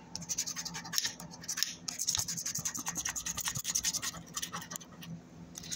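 A coin scraping the coating off a scratch-off lottery ticket: a fast run of short rasping strokes, thickest in the middle and thinning out near the end.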